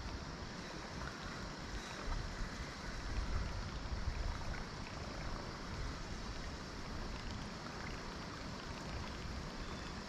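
Steady wash of river water and light wind around a kayak, with a low rumble of wind on the microphone swelling between about two and five seconds in.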